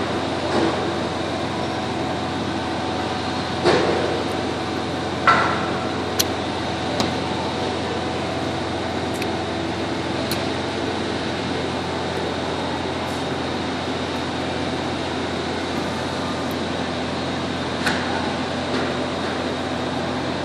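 Small brass valve parts and snap-ring pliers being handled on a workbench: a few sharp metal clicks and light knocks as pieces are picked up and set down, the strongest about four and five seconds in, over a steady background hum.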